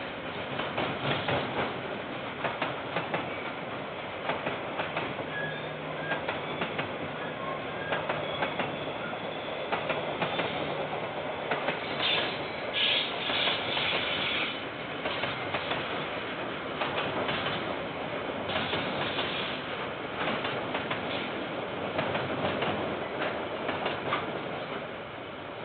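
Freight train of container wagons rolling past, its wheels clattering over the rail joints in an irregular run of clicks over a steady rumble. There is a brief high-pitched squeal about halfway through, and the sound fades near the end as the last wagons pass.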